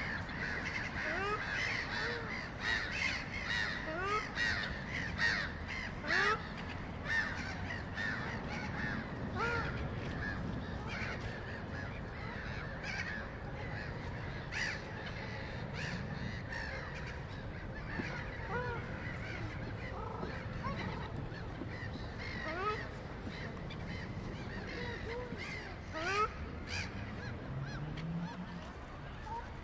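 A flock of gulls calling: many short, harsh calls overlapping, thickest in the first few seconds and thinning out later. A low, steady rumble runs underneath.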